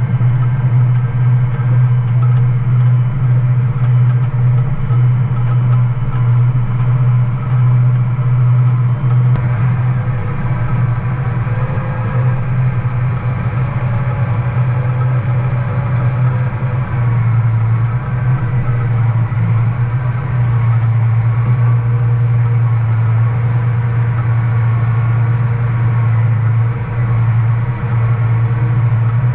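Harvest machinery engine running steadily with a deep, constant drone. The sound changes slightly about nine seconds in.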